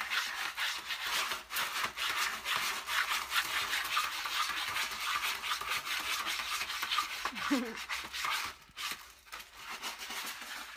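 A cat digging in a plastic litter tray of pelleted litter: fast, irregular scratching and raking as its paws scrape the pellets and the tray, tailing off near the end.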